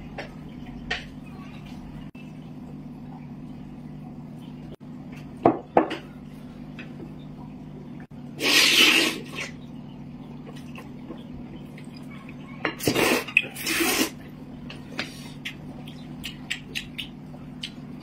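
Noodles slurped noisily in a few long slurps, about eight and thirteen seconds in, with chopsticks clicking against plates and bowls. A steady low hum underneath.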